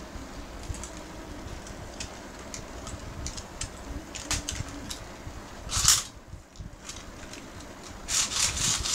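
A Beyblade spinning in a plastic stadium, a faint steady whir with light scattered clicks. Short rustling noises break in about six seconds in and again near the end.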